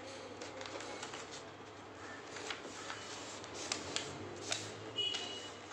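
A sheet of paper being folded by hand, rustling as it is handled, with several short, sharp crackles as the folds are pressed flat, clustered in the second half.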